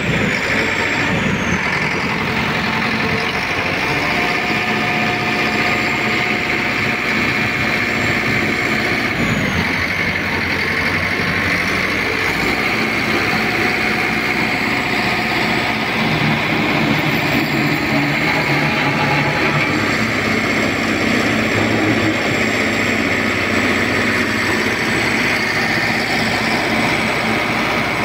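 Caterpillar motor grader's diesel engine running steadily, its low note shifting slightly a few times.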